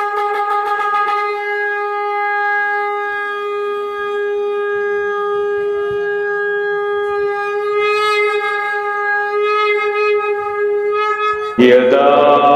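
A conch shell (shankh) blown in one long, steady note. About eleven and a half seconds in it is cut off by loud devotional chanting with music.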